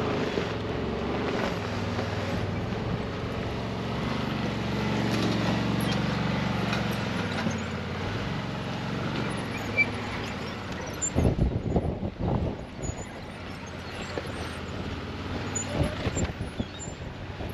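A motor vehicle's engine running steadily, fading out after about nine seconds. Gusts of wind then buffet the microphone in low, uneven rumbles.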